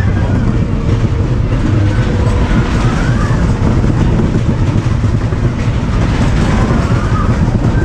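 Ride car of a vintage Lightning Skid fairground ride heard from on board, its wheels rumbling and clattering steadily and loudly on the track. Faint high squeals rise and fall about three seconds in and again near the end.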